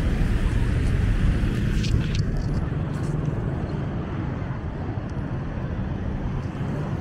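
Passing road traffic: a vehicle's low rumble, loudest in the first two seconds or so and then easing off, with a few short clicks around two to three seconds in.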